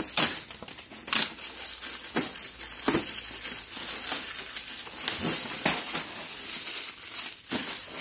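Crinkly plastic wrapping and a cardboard box rustling as a wrapped round part is pulled out of the parcel, with a sharp crackle about once a second.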